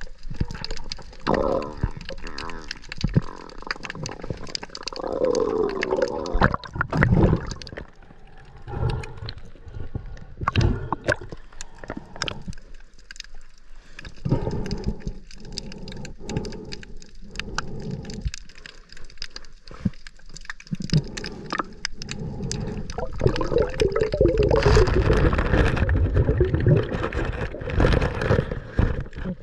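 Water sloshing and gurgling around a snorkeller's camera, with many scattered clicks and knocks. There are louder, rougher stretches about six seconds in and again near the end.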